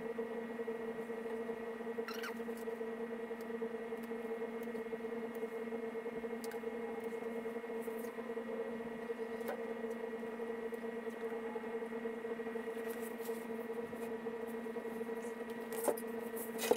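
Faint crackles and ticks of blue painter's tape being pulled off the roll and pressed along a boat hull, over a steady hum; a sharper click near the end.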